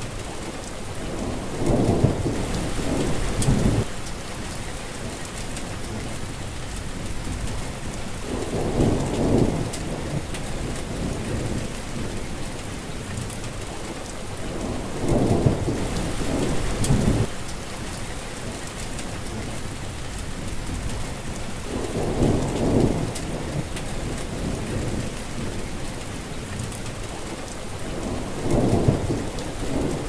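Steady rain falling, with a low rumble of thunder about every six or seven seconds, five in all.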